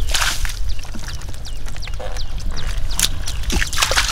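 Water splashing and sloshing, with scattered sharp splashes, a low rumble and many short high chirps that fall in pitch.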